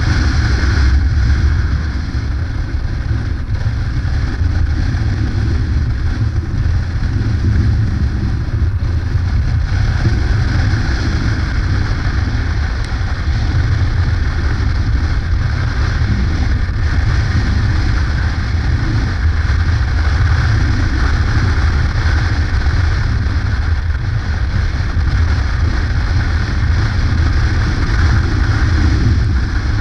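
Yamaha Ténéré adventure motorcycle engine running steadily at cruising speed, heard from the rider's position with wind rushing over the microphone.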